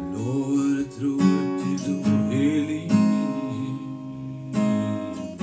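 Acoustic guitar with a capo, chords strummed with several sharp strokes, the chords ringing on between them.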